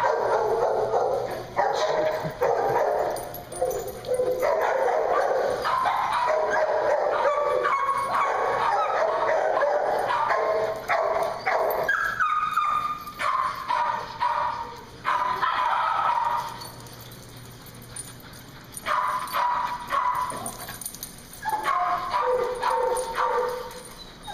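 Several dogs barking and yipping as they play together.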